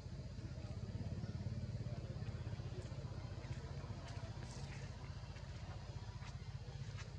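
Steady low engine rumble with a fast even pulse, like a motor vehicle idling, with a few faint short high clicks or chirps over it.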